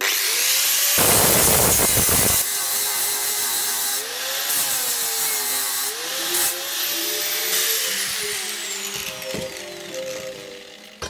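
Angle grinder cutting through rectangular steel tube, loudest in the first couple of seconds of the cut. About three-quarters of the way through it is switched off and its whine falls away as the disc spins down. Orchestral music plays underneath.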